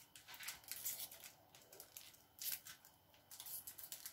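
Foil-paper wrapper of a Maggi shrimp stock cube crinkling as the cube is unwrapped and broken by hand, in a series of short faint rustles, the loudest about two and a half seconds in.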